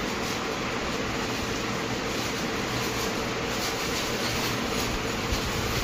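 Steady rushing noise of a running room fan with a faint hum, and plastic bags crinkling as items are pulled out of them.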